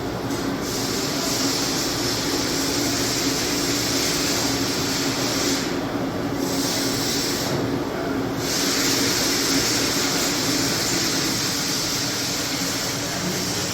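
CNC Swiss lathe with its magazine bar feeder running through a bar-feed cycle: a steady machine hum under a continuous hiss. The hiss cuts out twice briefly near the middle.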